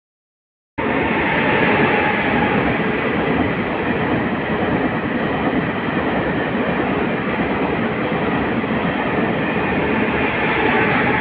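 A Taiwan Railway train passing close by, a steady loud rush and rumble of wheels on rail. It starts abruptly just under a second in.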